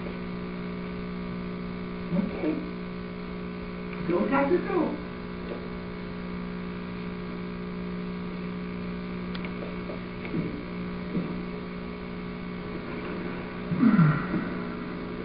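Steady electrical mains hum, with a few brief wordless voice sounds about two, four, ten and fourteen seconds in.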